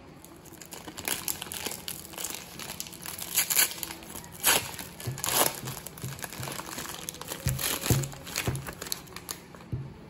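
Plastic wrapper of a Power Cap soda ice cream being torn and peeled open by hand: irregular crinkling and crackling, loudest through the middle, with a few low knocks late on as the plastic container inside is handled.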